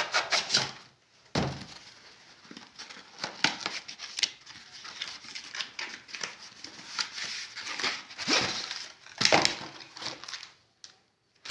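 Cardboard box and packaging of a tripod mobile stand being handled and opened: irregular rubbing, scraping and rustling, with the loudest scrapes about eight and nine seconds in.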